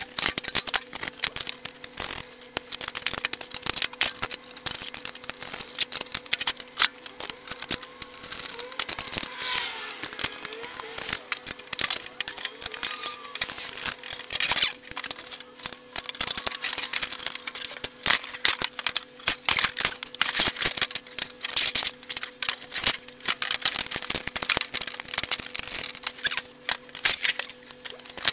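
Steel stand parts of a bandsaw being handled and bolted together: a dense run of light metallic clicks, clanks and rattles as legs, braces, bolts and spanners are picked up and fitted, over a steady low hum.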